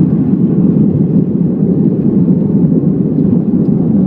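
Steady loud rumble of a jet airliner heard from inside the cabin during the landing roll just after touchdown.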